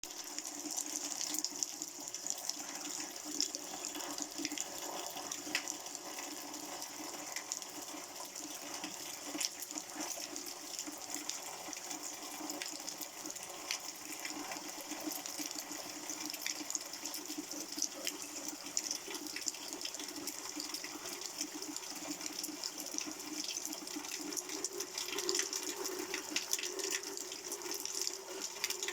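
Running water flowing steadily, with many small splashes.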